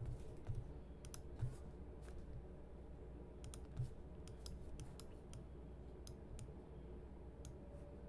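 Scattered sharp clicks of a computer mouse and keyboard being used, irregular and in small clusters, with a few soft low thumps among them.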